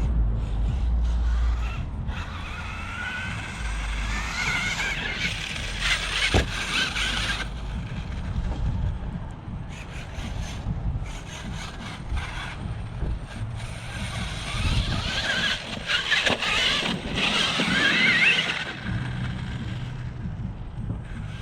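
RC monster truck's brushless electric motor and drivetrain whining up in pitch as it accelerates, twice, once a few seconds in and again about two-thirds of the way through. Under it is the rumble of tyres over rough ground, with an occasional knock.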